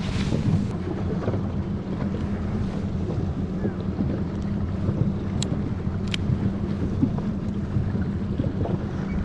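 Small fishing boat at sea: a steady low engine hum under wind buffeting the microphone and water washing around the hull. Two sharp ticks come a little past halfway.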